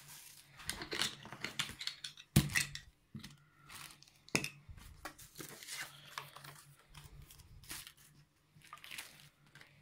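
Hands handling small plastic action-camera accessories: plastic bags crinkling and hard plastic mounts clicking and knocking onto a table in irregular rustles and clicks, with one louder knock about two and a half seconds in. A faint steady low hum runs underneath.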